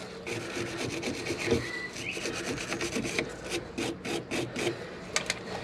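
Small hand wire brush scrubbing a rusty, crusty steel brake hose fitting on a rear brake caliper, in quick repeated scratchy strokes to clean off the corrosion before the fitting is undone.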